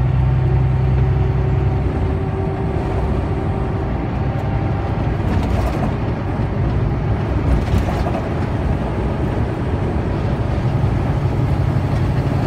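Truck engine and road noise heard inside the cab while cruising at highway speed: a steady drone, with a low engine hum that eases about two seconds in and comes back near the end.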